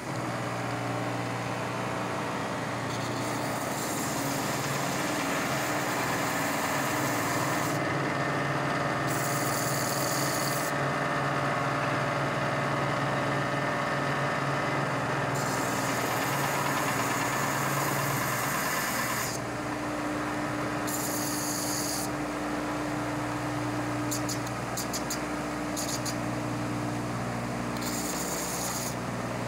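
Stationary belt sander running steadily, with a harsher grinding that comes and goes several times as the worn tip of a soldering iron is pressed against the belt. The tip is being ground down through old solder to bare copper to clear a pocked, worn face.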